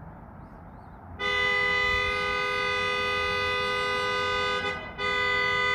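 Car horn sounding a long, steady two-note blast from about a second in, breaking off briefly near the end and then sounding again. It is being honked on purpose, not set off as a car alarm.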